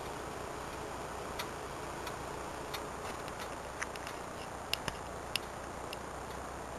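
Floppy disc drive formatting a disc under Acorn DFS: a faint steady running noise with irregular sharp clicks as the head steps from track to track.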